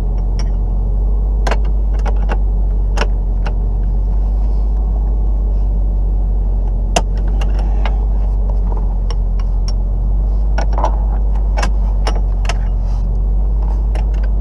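Sharp metallic clicks and clinks of wrenches on the seat-mounting bolts, scattered irregularly, over a steady low hum.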